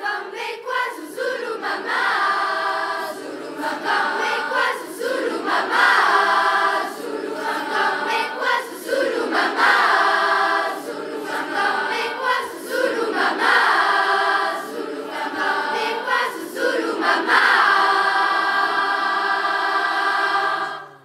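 Large youth choir singing together in phrases with brief breaths between them, the singing cutting off at the end.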